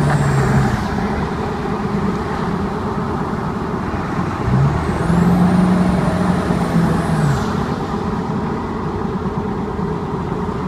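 2002 Ford 7.3 Powerstroke V8 turbodiesel running, its pitch rising about four and a half seconds in and dropping back about seven seconds in. A faint high squeal rises and falls with it, the squeal this engine makes under certain conditions.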